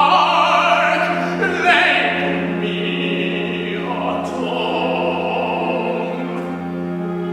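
Operatic voice singing long, sustained notes with vibrato over instrumental accompaniment, part of a lament aria.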